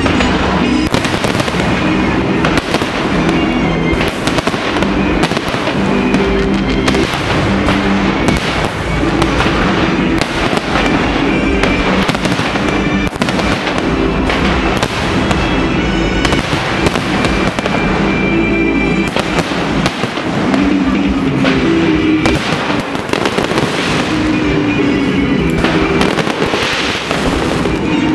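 New Year fireworks display: many bangs in quick succession throughout, over loud music with held notes.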